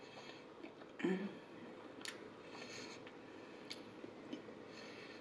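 A person chewing a mouthful of onion beef close to the microphone, with wet mouth clicks and smacks and a louder short low mouth sound about a second in.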